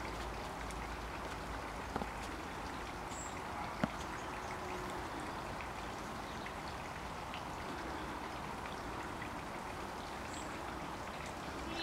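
Steady hiss of wet outdoor background noise, like water dripping and trickling after rain, with two sharp ticks about two and four seconds in and a few faint, very high chirps.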